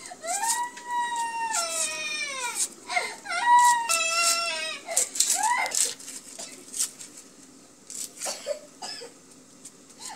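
A small child crying in long wails, each rising to a high held pitch, then stepping down and falling away, with short breaks between them. The crying dies down to brief whimpers over the last few seconds.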